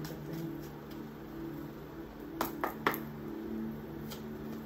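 Tarot cards being shuffled in the hands, with faint flicks and three sharp card snaps close together about two and a half seconds in, over a low steady hum.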